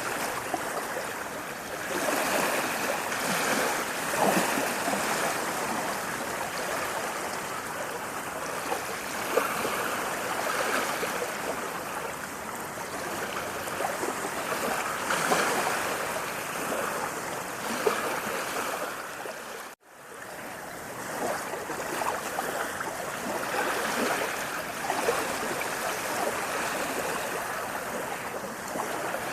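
Running water rushing steadily like a stream, swelling and easing every few seconds. About two-thirds of the way through it drops out for a split second, then comes straight back.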